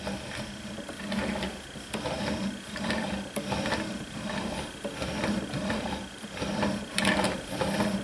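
Steel chisel edge, held in a honing guide, stroked back and forth under light pressure on a wet 16,000-grit waterstone: a rhythmic scraping of about two strokes a second. This is the final polishing pass that lays a micro bevel on the edge.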